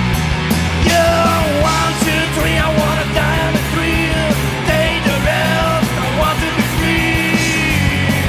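Hard rock band playing a song live: a male lead vocal sung over electric guitars, bass and a drum kit, with the voice coming in about a second in.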